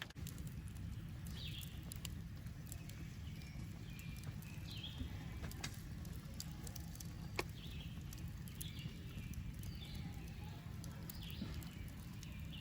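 Campfire crackling, with a few sharp pops over a low steady rumble, while short bird chirps recur every second or two.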